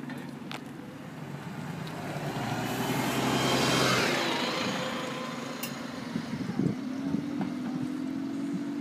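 Single-deck diesel bus driving close past, its engine and tyre noise swelling to a peak about four seconds in and then fading away. In the second half another bus approaches, its engine note steady and rising slightly.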